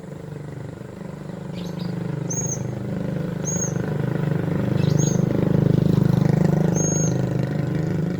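A vehicle engine passes close by, growing louder to a peak just past the middle and easing off near the end. Over it a bird gives short high chirps, about one a second.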